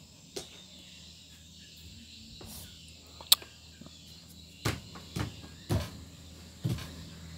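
Insects chirring steadily in the background, with a handful of short clicks and knocks scattered through. The sharpest click comes about three seconds in.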